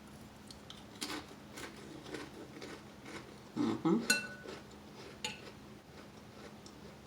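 A spoon tapping and scraping in a soup bowl: light clinks about every half second, then one ringing clink about four seconds in.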